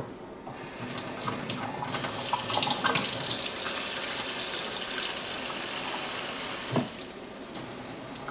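Kitchen faucet running water into the plastic water tank of a Sharper Image diffuser, filling it toward the maximum-fill line. About seven seconds in there is a knock and the splashing briefly drops before the flow resumes.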